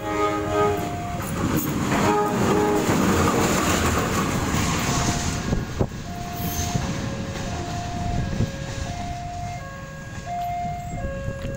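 CC201 diesel-electric locomotive approaching, its horn sounding in the first second and its engine and wheels rumbling loudest over the next few seconds. A level-crossing warning chime keeps alternating between a high and a low electronic note, about one note every two-thirds of a second, clearest in the second half.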